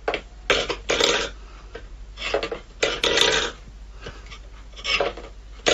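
A cat's bowl knocked and scraped against a wooden floor as the cat paws at it: about six short, clattering bursts with pauses between.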